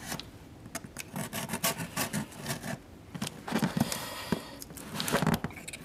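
A blade cutting through the packing tape on a cardboard box, with uneven scraping and scratching broken by short sharp clicks.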